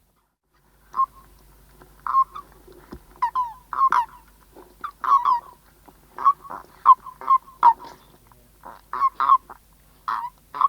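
Calls of birds, short pitched calls coming two or three a second, beginning about a second in.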